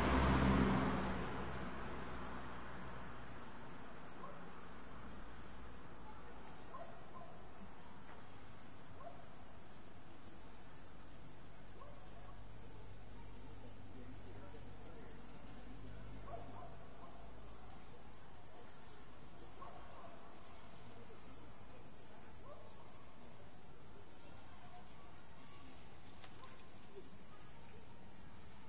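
Crickets chirping in a steady, high-pitched continuous chorus. A low rumble dies away in the first couple of seconds.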